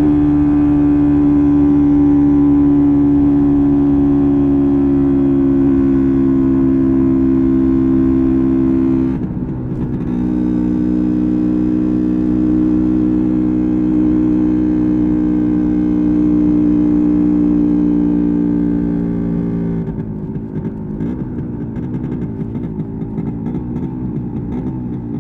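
A 1986 MZ ETZ 250's single-cylinder two-stroke engine running steadily under way, heard from onboard. It dips briefly about nine seconds in, then holds steady again. About twenty seconds in it drops to a quieter, uneven running, off the throttle.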